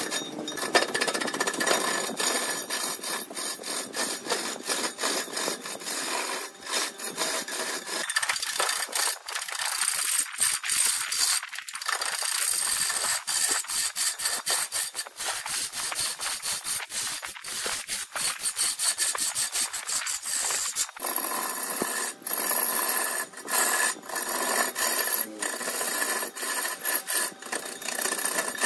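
A hand-held turning tool cutting into wood spinning on a large wood lathe: a harsh, scraping hiss broken by many brief breaks.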